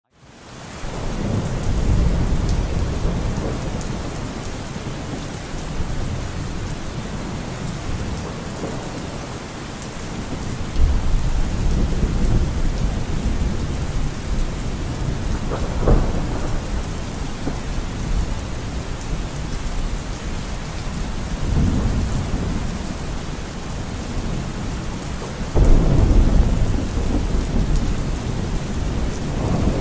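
Steady rain with thunder rumbling several times, one sharp crack about halfway through and a heavy rumble near the end. It fades in over the first second.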